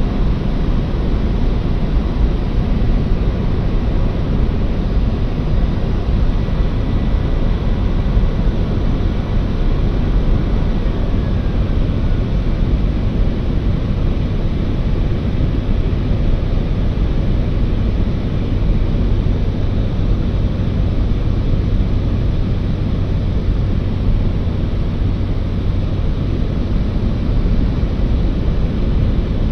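Aircraft in flight: a loud, steady engine drone with rushing noise, holding even throughout with no change in pitch.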